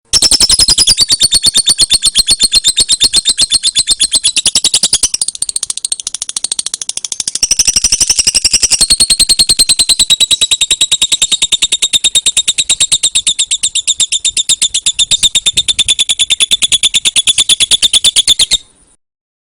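Lovebird giving its rapid 'ngetik' song: a long, unbroken string of sharp, high-pitched chirps repeated quickly and evenly, like typing. It eases off briefly after about five seconds, picks up again, and stops abruptly near the end.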